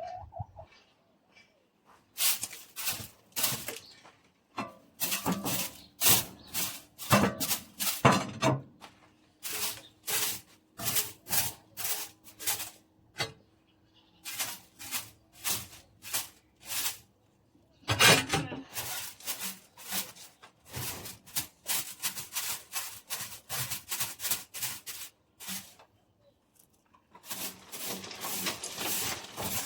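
Repeated scraping strokes, about two a second with a few short breaks, as chicken droppings are scraped off the floor of a chicken pen.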